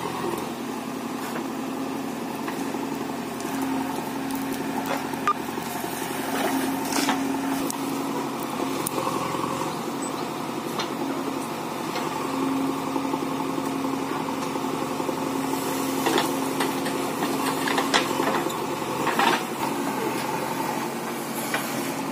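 Heavy diesel engines of a tractor and a backhoe loader running steadily at low speed, with a few sharp knocks and clatters in the second half.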